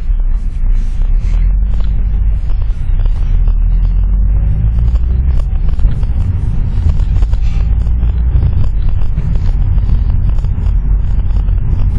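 Steady low rumble of a car driving slowly, engine and road noise heard from inside the cabin through a dashboard camera's microphone.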